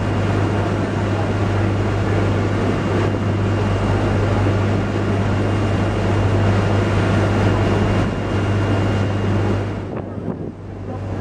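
A tour boat's engine running with a steady low hum under a rush of wind and water. The noise dips briefly near the end.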